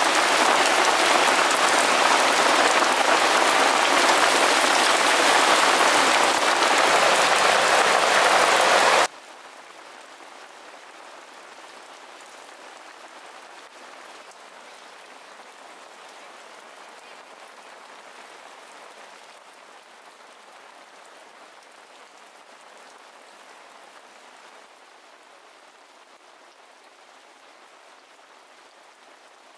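Steady rain hiss, loud at first, cutting off sharply about nine seconds in to a much fainter rain hiss that slowly fades away.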